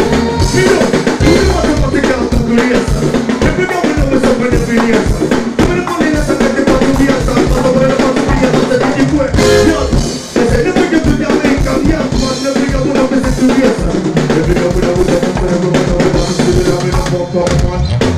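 Live band music with a drum-kit beat of snare and bass drum under electric guitar. The music drops briefly about ten seconds in.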